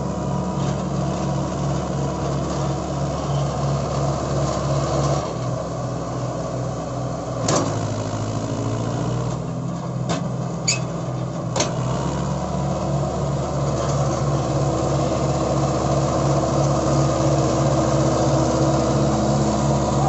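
Mahindra Arjun Ultra-1 555 DI tractor's four-cylinder diesel engine running under heavy load as it drags a loaded trailer through soft mud, with a regular low throb. A handful of sharp clicks come near the middle, and the engine gets a little louder and higher in the second half.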